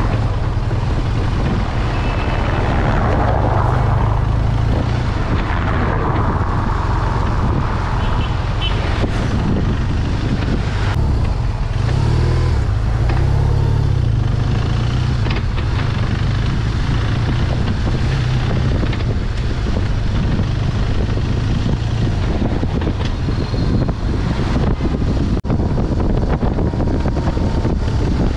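BMW R1200GS flat-twin engine running at low city-traffic speeds, mixed with a heavy, steady low rumble of wind on the camera microphone. Other traffic swells past in the first several seconds.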